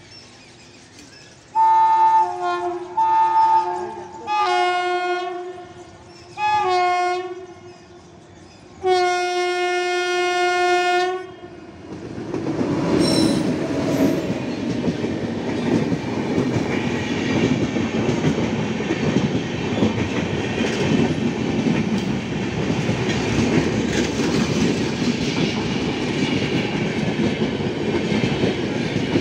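Indian Railways express train's locomotive horn sounding five blasts as it approaches, the last one the longest. Then, from about twelve seconds in, the locomotive and coaches pass close by with a loud steady rumble and clickety-clack of wheels on the rails.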